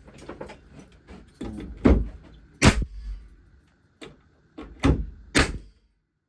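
Banks nail gun firing nails into the wooden workbench top: four loud, sharp shots, two close together near two seconds in and two near the end, with lighter knocks of handling in between.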